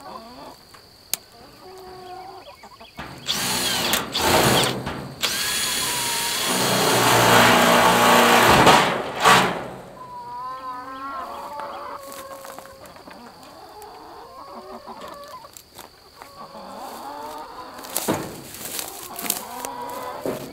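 Cordless drill running in short bursts and then one longer run of about four seconds, boring into the coop. After that, hens cluck.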